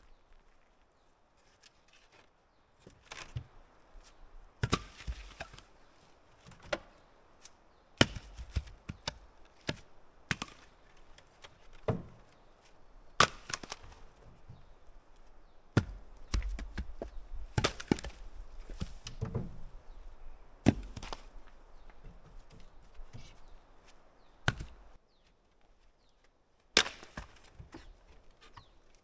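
Split firewood logs being tossed down onto the ground: irregular wooden knocks and clatters every second or two, some landing with a heavy thud.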